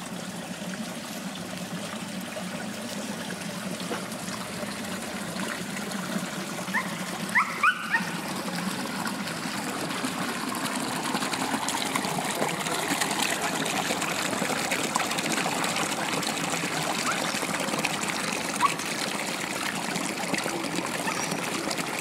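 Spring water trickling steadily out of the base of a travertine rock into a small stream. About seven seconds in come two or three short rising squeaks.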